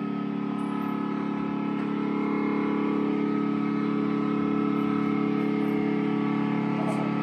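Electric guitar run through effects pedals, sustaining a steady drone of several held tones that neither rises nor falls.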